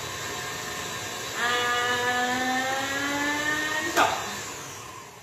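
Electric stand mixer running and mixing cookie dough, its motor whining and rising slightly in pitch from about a second and a half in. A single sharp clap comes about four seconds in, after which the noise fades.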